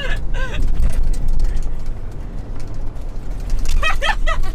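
Ford Bronco being driven fast on a dirt course: a steady low rumble of engine and road noise, with brief voices near the start and near the end.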